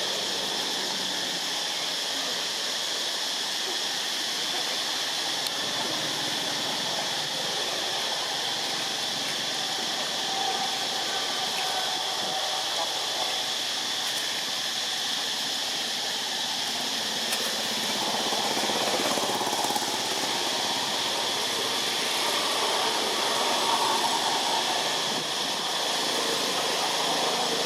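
Steady outdoor background ambience: a continuous hiss with an even high-pitched drone, getting a little louder in the second half.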